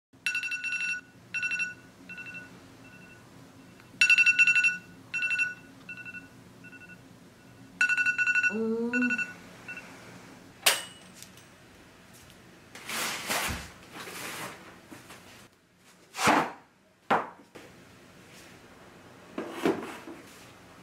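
Phone alarm ringing: groups of a pitched electronic beeping tune repeat for about ten seconds, each group trailing off in fading echoes, then the alarm stops. Afterwards there is a sharp click, some rustling and a few short knocks.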